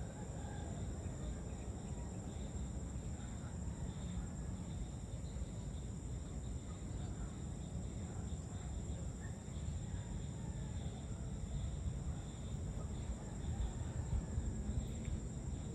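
Evening chorus of crickets and other insects: a steady, continuous high-pitched trilling in several overlapping layers, over a low rumble.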